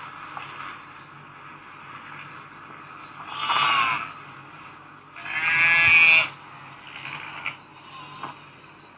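Sheep and lambs bleating: two wavering bleats, one about three seconds in and a louder, longer one about five seconds in.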